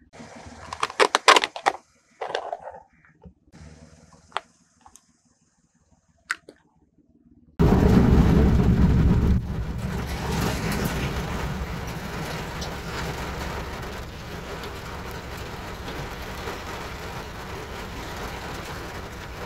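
A few sharp cracks and clicks, then about eight seconds in rain starts abruptly, drumming on a car's windshield and roof, heard from inside the car. It is heaviest for the first couple of seconds and then settles into a steady patter.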